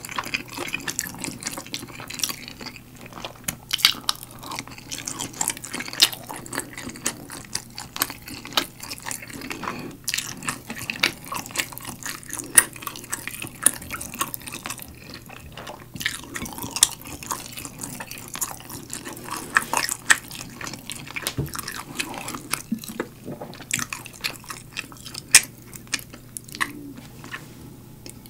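Close-up wet, sticky eating sounds: fingers pulling apart galbi-sauce-glazed roast chicken leg meat, and chewing, with a steady run of small smacking clicks.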